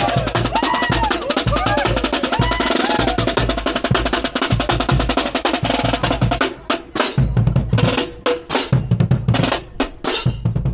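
Marching percussion: a marching snare drum playing a fast, dense run of strokes. About six and a half seconds in it breaks into sparser accented hits over deep bass drum strokes.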